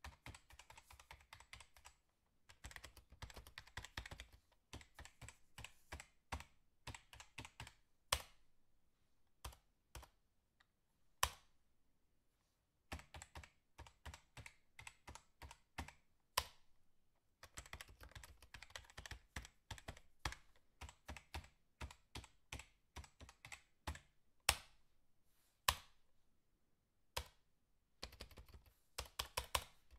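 Typing on a computer keyboard: runs of quick key clicks broken by short pauses, with some louder single keystrokes.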